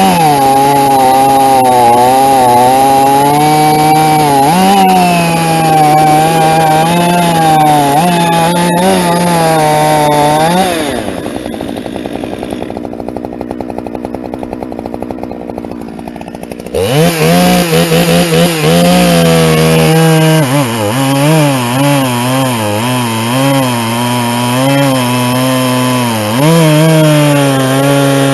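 Large two-stroke chainsaw cutting through a big log, its engine note wavering under load. About eleven seconds in it drops back to idle for several seconds, then revs up again into the cut.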